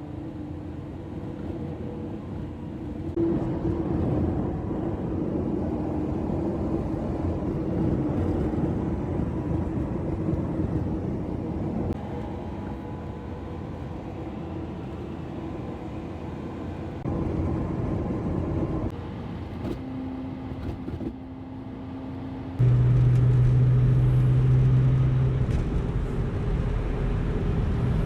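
Car engines running on the road, a steady drone that changes abruptly several times as one driving clip follows another. The loudest stretch, with a strong low hum, starts about three-quarters of the way through.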